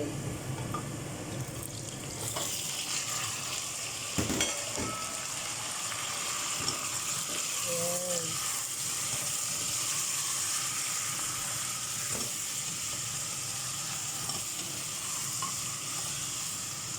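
Vegetables frying in hot cooking oil in a pan, a steady sizzle that grows fuller about two seconds in. There is a single knock a little after four seconds.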